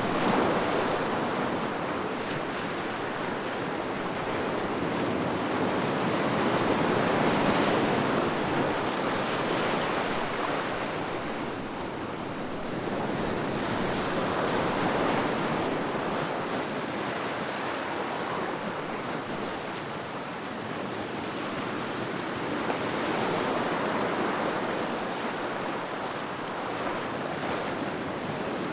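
Sea waves breaking and washing on a shore, a steady rush of surf that swells and fades every seven or eight seconds, with some wind on the microphone.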